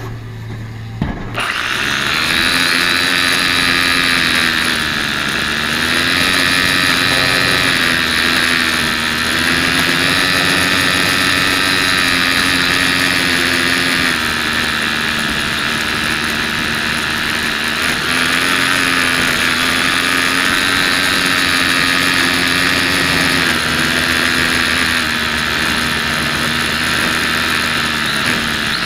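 Small toy quadcopter's electric motors and propellers spinning up about a second in as it lifts off, then a steady high whine that wavers up and down in pitch as the motors speed up and slow down. It is heard close up through the camera mounted on the drone itself.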